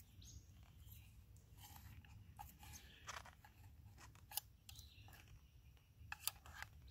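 Spork scraping and clicking against the inside of a small cookpot, prying at a baked muffin stuck to the bottom. The sounds are faint, a scatter of short scrapes and sharp clicks.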